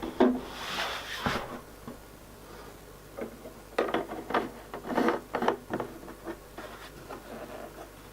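Handling noises of unpacking: packaging rustling and parts knocking and rubbing as items are lifted out of a box, in two busy spells, one at the start and another about four seconds in.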